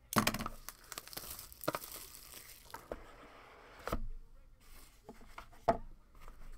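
A cardboard trading-card hobby box being opened and unpacked by hand: crinkling and tearing of its wrapping and cardboard for the first few seconds, then a few sharp knocks as the box, inner tray and card holders are set down, the loudest near the end.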